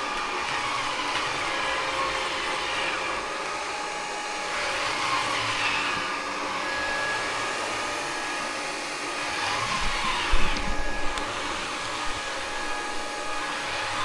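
Roborock Flexi Pro cordless wet-dry vacuum running steadily as its cleaning head is pushed back and forth over the floor, swelling slightly with the strokes. A few low thumps come about ten seconds in.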